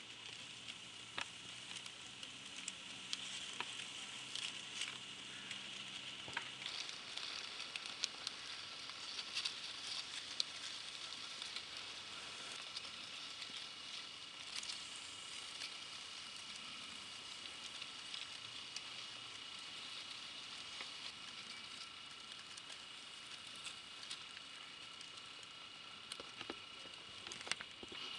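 Faint crackling and rustling of dry reed stems and leaves, many small irregular clicks, over a thin steady high whine.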